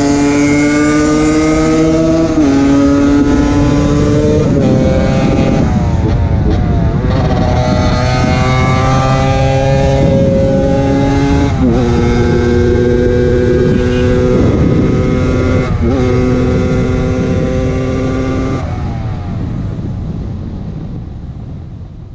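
Yamaha DT125X single-cylinder two-stroke motorcycle engine accelerating hard through the gears: the engine note climbs steadily, drops sharply at each upshift about five times, then climbs again. Near the end the sound fades away.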